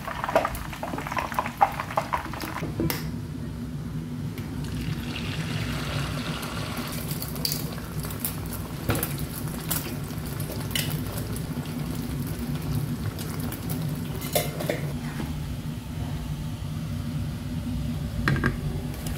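Shallow frying in a pan of oil on a stovetop, with a faint sizzle, scattered clinks of a metal ladle against the pans, and a steady low hum underneath.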